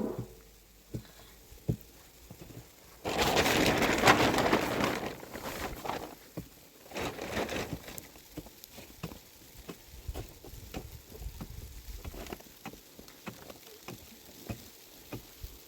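Plastic sheeting rustling and crackling as it is handled. It is loudest for about two seconds a few seconds in, again briefly later, with scattered small clicks between.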